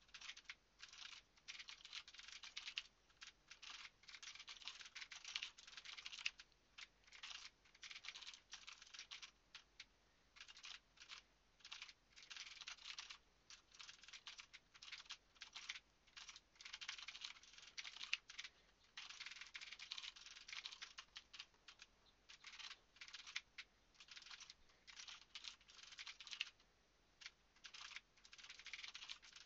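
Computer keyboard being typed on, faint, in quick runs of keystrokes with short pauses between them.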